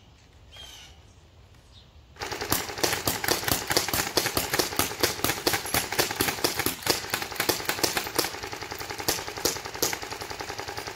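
Airsoft guns firing a rapid, continuous stream of shots that starts suddenly about two seconds in, after a quiet opening.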